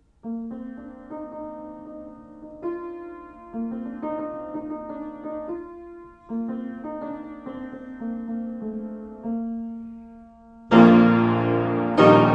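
Solo piano playing a lundu: moderately quiet phrases of sustained notes and chords, then a loud, full chord struck about eleven seconds in and another just before the end.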